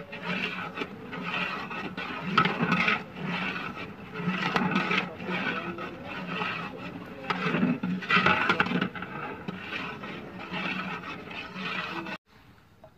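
A long metal ladle scrapes and stirs a thick semolina halwa mixture against the bottom and sides of a large aluminium pot, in repeated uneven strokes. The sound stops abruptly about twelve seconds in.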